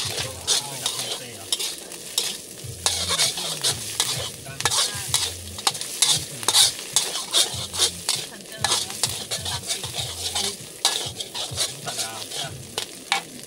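Vegetables stir-frying in a hot pan: a steady sizzle broken by many quick scrapes and knocks of the spatula as the food is tossed.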